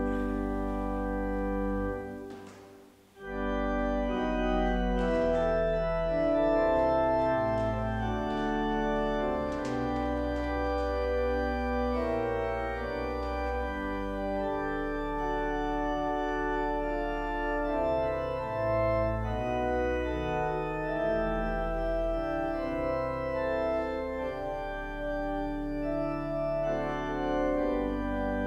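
Church organ playing sustained chords and a melody line. It breaks off about two seconds in and starts again about a second later.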